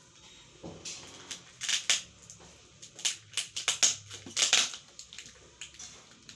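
Scissors cutting open a parcel's packaging: a run of short, irregular snips and crinkles, loudest around the middle.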